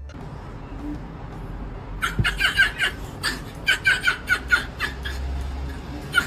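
A person laughing in a quick run of short "ha" bursts, starting about two seconds in, with a few more bursts near the end.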